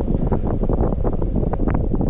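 Strong wind blowing across the microphone, a dense low rumble with irregular gusty buffets.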